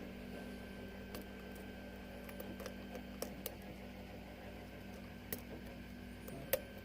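Faint, scattered clicks and scratches of a lock pick working the pin stack of a six-pin Falcon lock under tension. A low steady hum runs underneath and stops shortly before the end.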